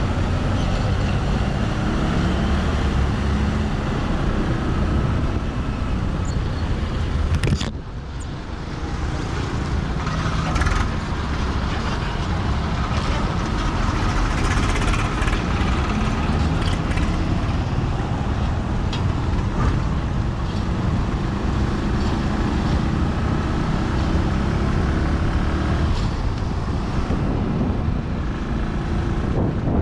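Steady motor vehicle engine and road noise, with a sudden brief drop in level about eight seconds in.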